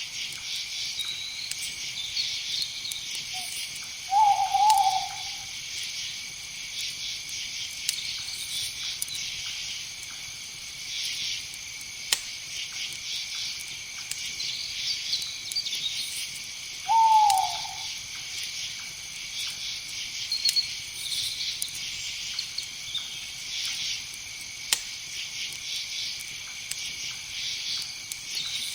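An owl hooting twice, about 13 seconds apart; each hoot is short and falls in pitch. Under the hoots runs a steady high chorus of insects.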